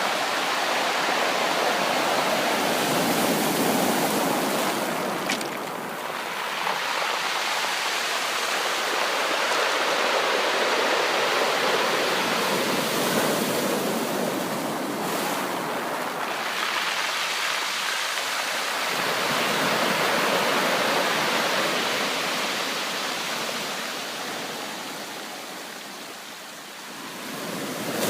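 Sea waves breaking and washing ashore in a continuous rush that swells and eases every several seconds.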